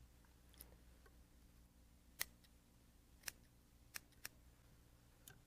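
Small fly-tying scissors snipping the macrame-yarn body of a streamer fly, trimming it to a minnow shape. About seven separate short snips a second or so apart, the loudest about two seconds in.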